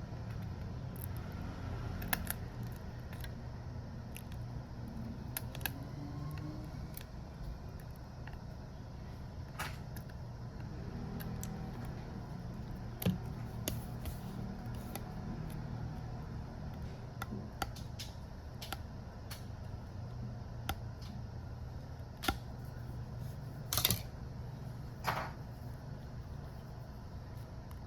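Scattered small clicks and taps, like hand tools working on a smartphone, over a steady low hum. A few sharper clicks stand out near the end.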